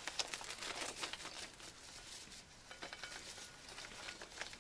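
Packets of powdered sugar crinkling and rustling as they are handled and emptied into a metal bowl, in irregular crackles with a short lull midway.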